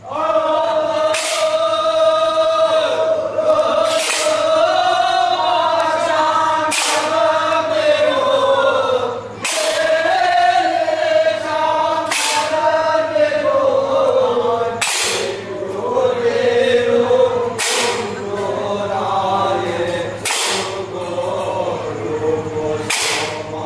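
Group of voices singing a slow, drawn-out chant, with a sharp percussion strike about every three seconds.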